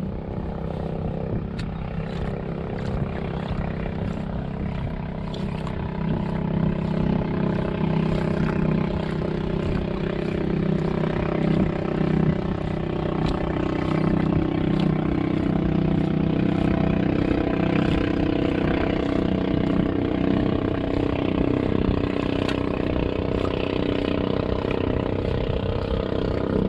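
Small boat engine running steadily at idle, a low drone that grows a little louder about six seconds in.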